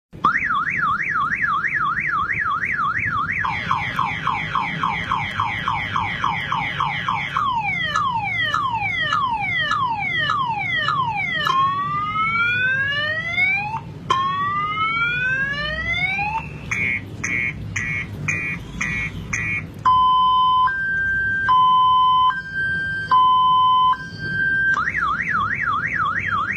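Car alarm siren cycling through its tones: a fast up-and-down warble, then a faster warble, repeated falling sweeps, repeated rising sweeps, a rapid pulsing chirp, and a high-low two-tone, returning to the warble near the end.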